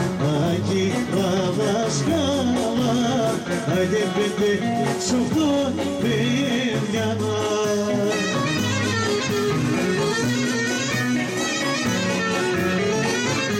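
Greek folk dance tune led by a clarinet playing a wavering, ornamented melody over a steady beat in the bass.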